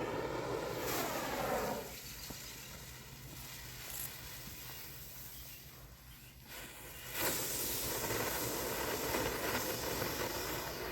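Brothers Fireworks 'The Globe' firework fountain hissing as it sprays sparks. The hiss eases about two seconds in, then a second stage flares up sharply about seven seconds in and hisses on.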